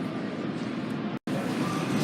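Steady low rumbling noise, cut by a split-second dropout a little over a second in.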